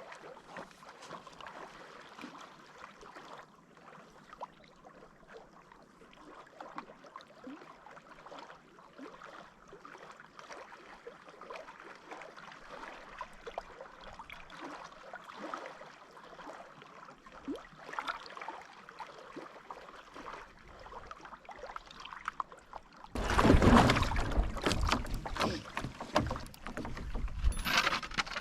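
Canoe being paddled: quiet paddle strokes with water dripping and lapping around the hull. About five seconds before the end, loud wind buffets the microphone.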